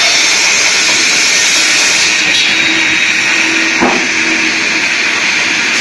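Circular-blade log table sawmill running and sawing a log, a loud steady hiss-like whine, with one sharp knock about four seconds in.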